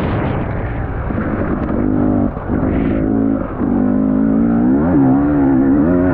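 Motocross bike engine revving hard and rising and falling in pitch as the throttle is opened and rolled off, with two brief dips in level a little over two and about three and a half seconds in and a quick rise in revs near five seconds.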